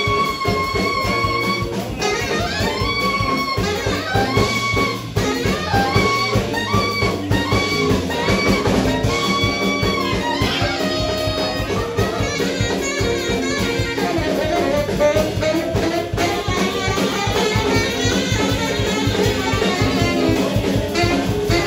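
Live jazz band: a saxophone plays the melody in held, bending notes over electric guitar and drum kit.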